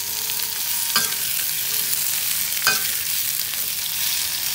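Chopped shallots, chilies and tomato sizzling in hot oil in a cast-iron wok while a metal spatula stirs them. The spatula strikes the pan sharply twice, about a second in and again past the middle.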